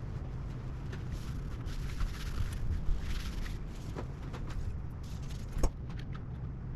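Hands working on a graphics card during teardown and cleaning: scattered light clicks and scraping of small parts being handled, over a steady low hum.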